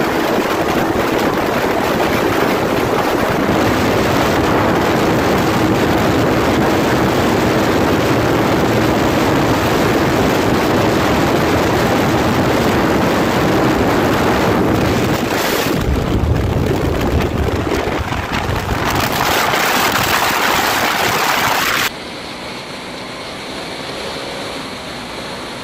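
Heavy wind rush on the microphone of a Yamaha R15M held flat out at high speed in top gear, with the steady drone of its 155 cc single-cylinder engine beneath. Near the end the sound drops abruptly to a quieter, duller mix of wind and engine noise.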